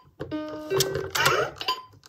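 VTech Teach and Travel Animal Train toy playing a short electronic tune of held notes through its small built-in speaker, with a couple of brief recorded vocal sounds mixed in.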